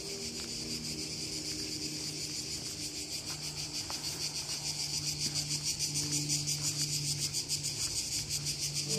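Insects chirring in a dense, high-pitched, rapidly pulsing drone that grows a little louder toward the end.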